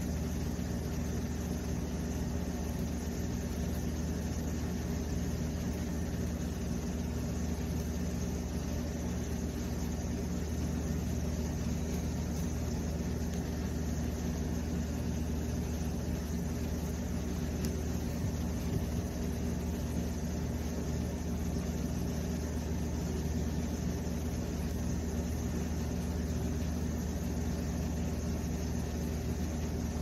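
A steady low mechanical hum that holds unchanged throughout.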